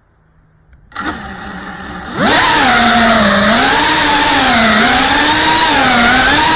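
FPV quadcopter's brushless motors: a low steady whine starts about a second in, then the throttle comes up and the whine jumps up in pitch and runs loud, rising and falling in pitch with the throttle as it flies.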